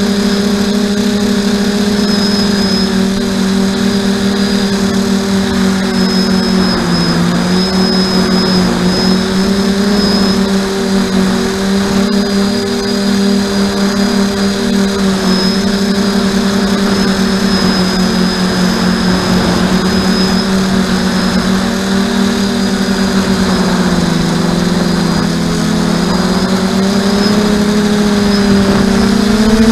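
RC aircraft's motor and propeller running steadily, heard through its onboard camera's microphone: a constant hum that dips slightly in pitch about a quarter of the way in and again near the end.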